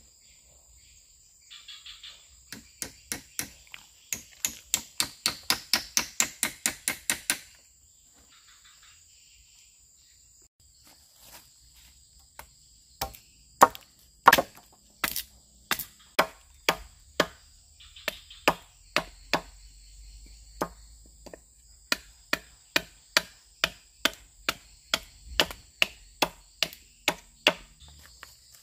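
Wood being chopped with a blade in quick, even strokes, about two to three a second, in two runs with a pause of several seconds between them. Insects buzz steadily underneath.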